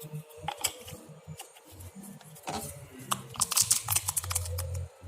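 Slime being stirred in a container: irregular sticky clicks and squelches, thickest from about three seconds in, over faint background music.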